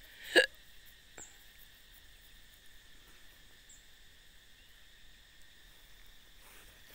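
A sharp click about half a second in and a fainter one a moment later, then a faint steady insect drone with a few short high chirps.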